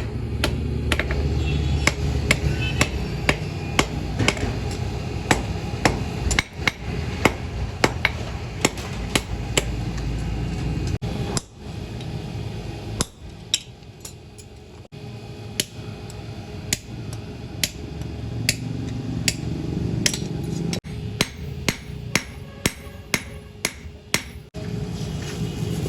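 Hammer blows on hot steel from a truck leaf spring being forged into an axe head, struck steadily about twice a second over a low rumble.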